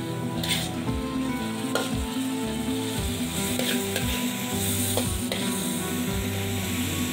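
Chunks of food sizzling as they fry in hot oil in a pan, stirred with a metal spatula that scrapes the pan a few times. Background music plays underneath.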